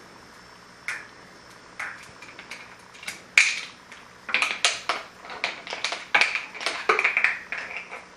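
Bottle cap being pushed and flicked along the floor by an African grey parrot's beak: sharp clicks and short scrapes, a few spaced apart at first, then a quick run of clattering clicks from about four seconds in.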